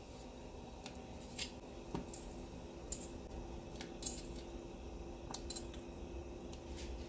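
Whole tomatoes dropped one at a time into a pot of boiling water for blanching, each landing with a short splash, several of them about a second apart, over the low steady sound of the boil.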